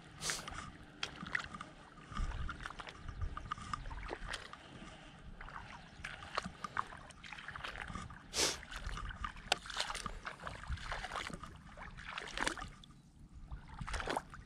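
Shallow water sloshing and splashing in irregular bursts, with a low rumble under it. It quietens briefly near the end before one last splash.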